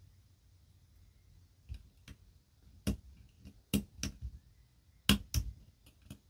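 Sharp, irregular clicks of a lock pick and tension wrench working the pin stack of a five-pin Yale Eaton padlock during single-pin picking, a handful of them from about a second and a half in.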